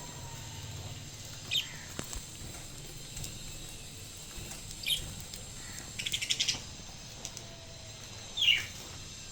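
Budgerigar hiccuping while eating: three short squeaks, each falling in pitch, a few seconds apart, the last the loudest. A quick run of about eight sharp clicks comes between the second and third.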